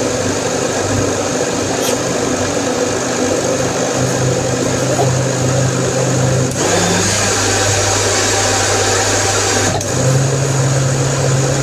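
Countertop blender motor running loudly, with a steady whirring and churning; the motor note shifts a few times, about four, six and a half and ten seconds in.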